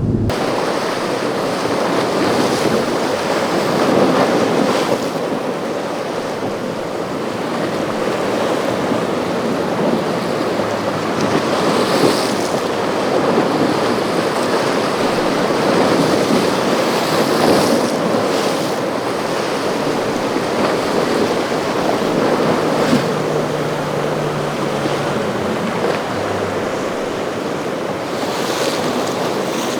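Surf and churning water at a rough inlet, with heavy wind buffeting the microphone and swelling up several times.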